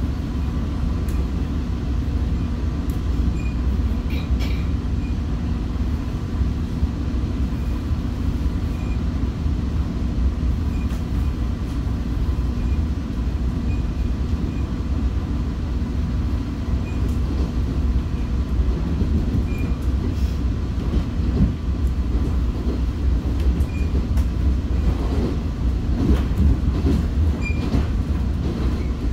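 Commuter train running along the track, heard from inside a passenger coach: a steady low rumble of wheels on rail, with a few faint clicks near the end.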